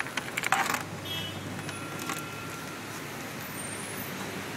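A few quick clicks and rattles in the first second as the twist lock on the Yaris's cargo floor cover over the spare tire is turned to lock it, then a steady background hum.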